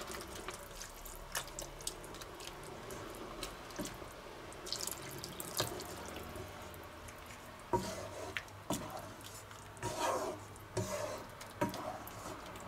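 Wooden spatula stirring and scraping a wet vegetable sauce in a nonstick pan, with wet sloshing and a few sharp knocks of the spatula against the pan.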